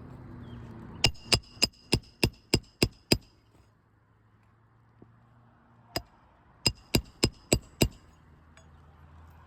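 Roofing hammer striking a roof snake to drive roofing nails back in beneath a shingle: a quick run of eight sharp, faintly ringing metal strikes, about three a second, then a single strike and a run of five more.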